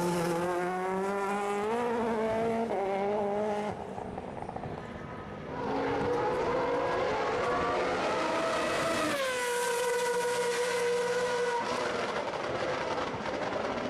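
WTCC touring car engines (1.6-litre turbocharged four-cylinders) at high revs, the note climbing in pitch through the gears. It dips in level about four seconds in, climbs again, then drops in pitch about nine seconds in and holds a steady note before fading.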